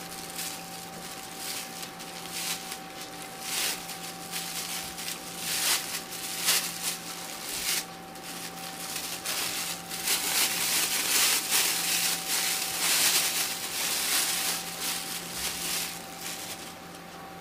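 Thin plastic bag crinkling and rustling in hands as it is opened and pulled out of a cardboard box, in irregular bursts that are busiest in the second half. A steady low electrical hum runs underneath.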